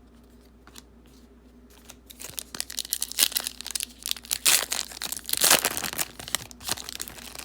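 A plastic wrapper on a 2019 Panini Prestige football card pack being torn open and crinkled. A few light handling clicks come first, then loud crackling from about two seconds in, loudest near the end.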